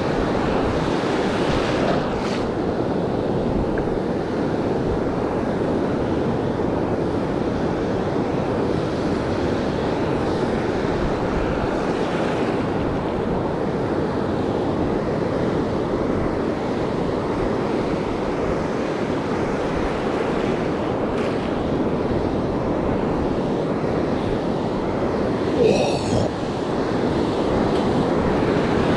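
Ocean surf and wind buffeting the microphone in a steady rush of noise. Near the end comes a brief high, wavering sound.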